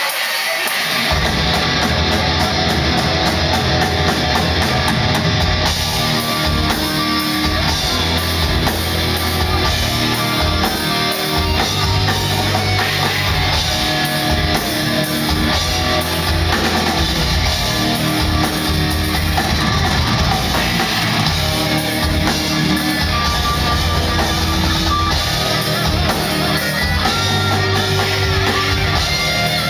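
Thrash metal band playing live: distorted electric guitars, bass and drum kit crash in together about a second in and drive on at full volume with a fast, riff-based rhythm.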